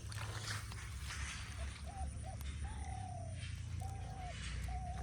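A dove cooing: a run of short soft notes, one longer note in the middle falling in pitch, over a low steady rumble.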